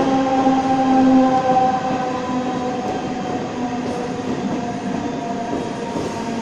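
Mumbai suburban electric local train slowing as it runs into the platform: steady rumble of wheels on rail under a whine of several tones that slowly fall in pitch, loudest about a second in.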